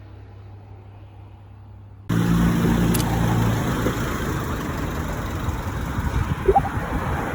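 Faint low hum, then about two seconds in a sudden cut to a steady vehicle rumble and hiss, with one short rising squeak near the end.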